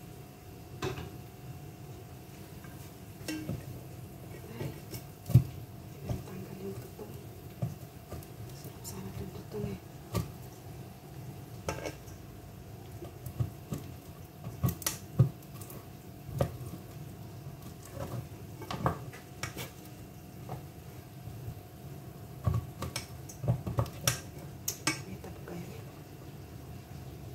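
A utensil clinking, knocking and scraping against a metal cooking pot during stirring, in irregular strokes, a few louder knocks among them. A steady low hum runs underneath.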